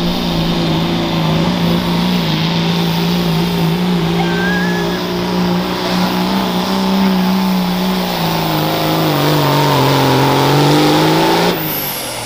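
Dodge Ram's Cummins diesel engine at full throttle dragging a pulling sled, a steady drone that sags lower in pitch as the engine bogs under the sled's growing load, then cuts off abruptly near the end as the pull ends.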